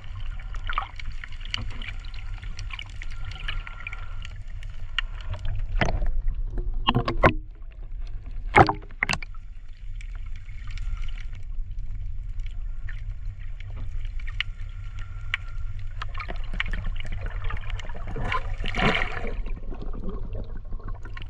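Underwater sound picked up by a snorkeller's camera: a steady low rumble of water against the camera housing with scattered crackling clicks. A few louder sloshes and knocks come through a few times.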